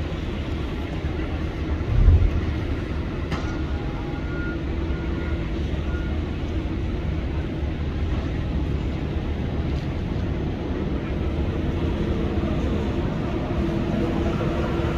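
Diesel engines of heavy earthmoving machinery running steadily, with one heavy low thump about two seconds in and a few faint short beeps soon after.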